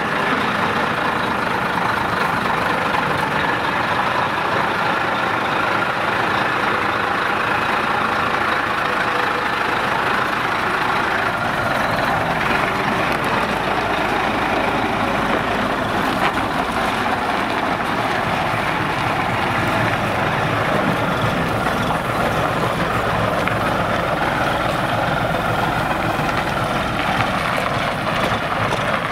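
Diesel engine of a 1984 Mack R-series truck running steadily.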